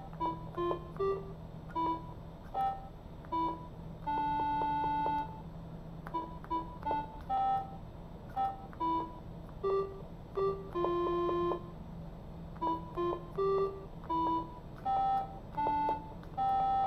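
Electronic beeping notes from an Arduino Nano toy keyboard with clothespin keys, played through a small speaker: a simple tune of single notes one after another, mostly short, with a few held for about a second.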